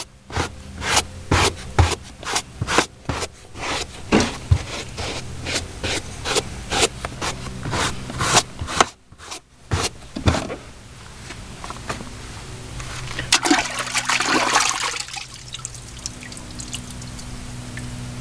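Brush scrubbing a truck's floor carpet in quick strokes, a couple a second, working in the carpet cleaner that has been sprayed on; the scrubbing stops about ten seconds in. A short hiss of about two seconds follows a few seconds later.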